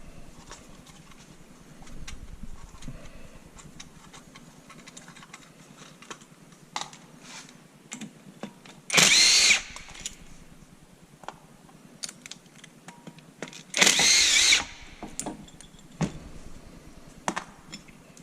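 A power drill-driver running in two short bursts, each about half a second to a second long, the second a few seconds after the first. Light clicks and knocks of metal parts being handled fall between them.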